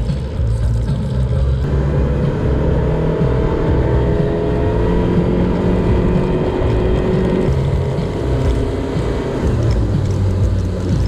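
Boat's outboard motor running under way, its pitch rising gently about two seconds in, then cutting off suddenly at the end.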